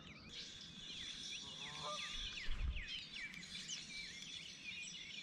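Several songbirds singing and chirping together, many short rising and falling calls over a steady high tone, with a soft low bump about two and a half seconds in.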